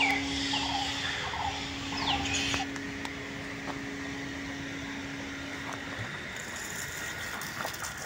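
Outdoor ambience with a few high, falling squealing animal calls in the first two or three seconds, then a steady hiss with a faint hum that stops about six seconds in.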